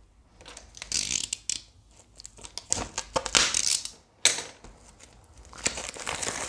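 Packaging of a model-kit partwork issue being torn open and crinkled by hand, in irregular bursts of rustling.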